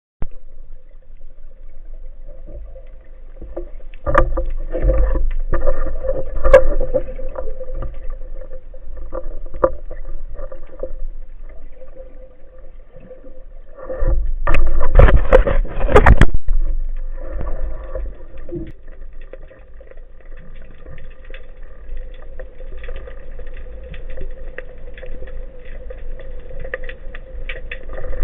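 Water sloshing and rushing around a camera in the sea, with scattered knocks and a steady hum underneath; the rushing swells loudest twice, about four seconds in and again about fourteen seconds in.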